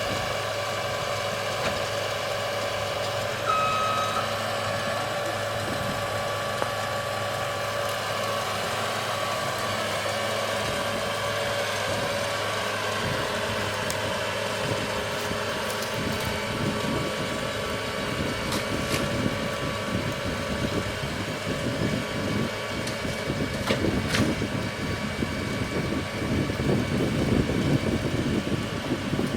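The engine of a Pfanzelt Moritz fr 75 forestry machine running steadily, with one short beep about three and a half seconds in. From about halfway through, a rougher, louder rumble with a few sharp knocks comes in under the engine.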